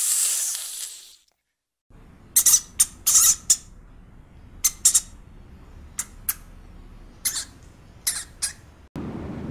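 An Indian cobra's hiss, fading out about a second in. After a short silence, a pet rat eating dried food, with a dozen or so short, sharp, high sounds at irregular intervals over a faint low hum.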